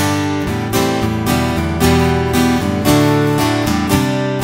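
Acoustic guitar strummed in a steady rhythm, playing the song's chorus and intro progression in G at full tempo (G, A minor 7, G/B, E minor 7, D sus, C2). The fretting hand keeps two fingers anchored on the B and high E strings and moves the bass note, so the same top notes ring through each chord change.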